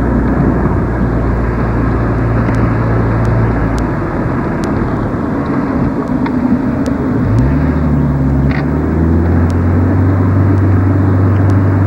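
A motor vehicle's engine running under a steady rush of noise. Its low hum drops away about four seconds in and climbs back up in pitch around seven seconds in.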